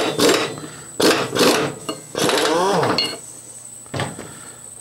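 Impact gun on a riding-mower deck pulley nut, firing in short bursts about two a second, then one longer run about two seconds in as the nut breaks loose. About three seconds in there is a short metallic clink, and a single knock follows a second later as the pulley comes off.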